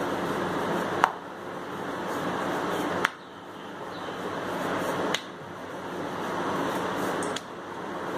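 Wooden rolling pin rolling puri dough on a marble rolling board, with four sharp clicks about two seconds apart over steady background noise.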